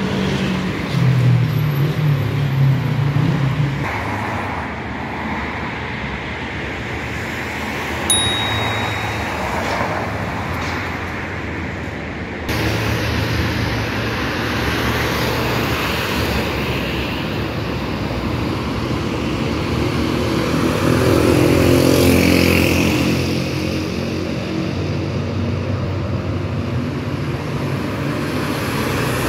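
City street traffic: cars driving past with their engines running, one passing close and loudest about twenty-two seconds in. A short, high ping sounds about eight seconds in.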